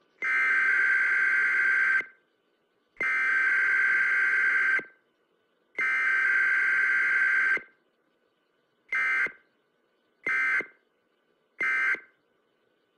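Emergency Alert System digital data tones (SAME bursts). Three buzzy bursts of about two seconds each, about a second apart, form the alert header. Then three short bursts form the end-of-message code.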